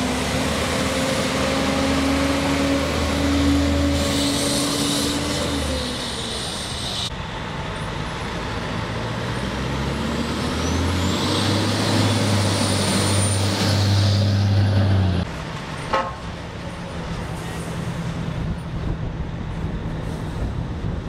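Fire trucks' diesel engines running as they drive past, the engine note rising and falling with the throttle and a high whine climbing over it now and then. The sound changes abruptly twice, and a single sharp knock comes about sixteen seconds in.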